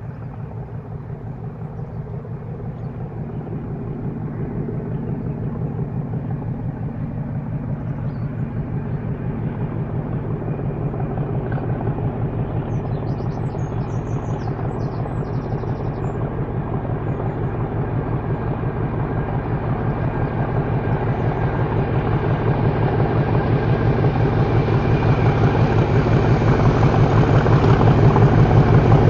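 Class 37 diesel-electric locomotive's English Electric V12 diesel engine approaching, its rhythmic low engine beat growing steadily louder.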